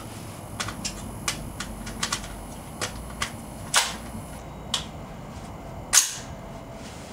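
A run of about a dozen sharp clicks and clacks at irregular intervals, with a louder clack near 4 seconds and the loudest about six seconds in: metal handling sounds from an AR-15 rifle being readied to fire.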